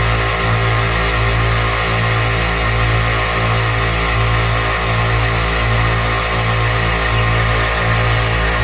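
Oil-free direct-drive twin-motor air compressor running steadily while it pumps up its tank, with a regular throb about one and a half times a second.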